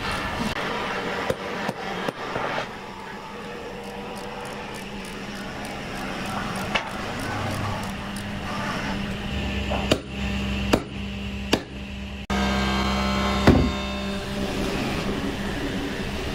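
Woodworking shop sounds: a handful of sharp knocks of tools and hammer on wooden workpieces, the loudest near the end. Partway through, a machine hums low and steady for several seconds before cutting off.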